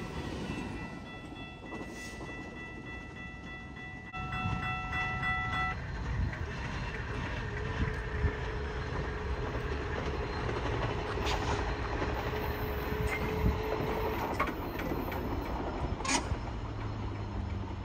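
Two CN diesel locomotives running light, with no cars behind them, passing by: a steady engine and wheel rumble that grows louder about four seconds in, with a few sharp wheel clicks over the rail joints.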